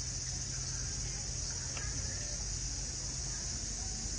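Cicadas buzzing in a steady, high-pitched summer chorus, with a low steady hum beneath.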